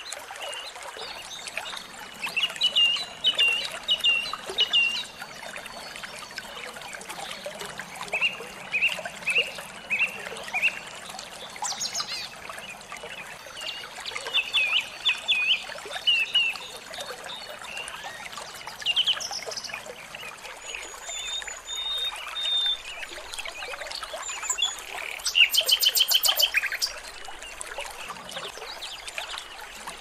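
Small songbirds calling in quick runs of short, high chirps over a steady background of running water, with a loud, rapid buzzy trill late on. A masteran bird-song tutoring track for training murai batu.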